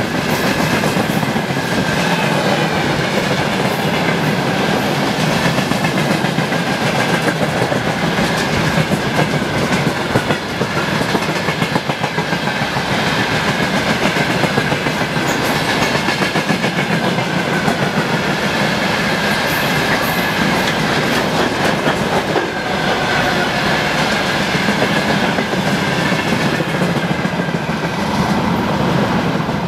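Train passing close by: a loud, steady rumble of wheels on the rails with a faint high whine over it, lasting about half a minute and cutting off suddenly at the end.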